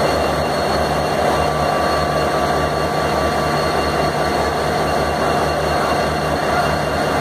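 Diesel locomotive engine idling at standstill: a steady low rumble with a regular throbbing pulse, and faint steady high whines over it.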